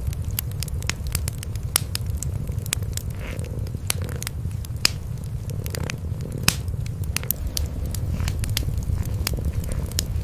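A kitten and its mother cat purring steadily, a continuous low rumble, over a wood fire crackling with frequent sharp, irregular pops.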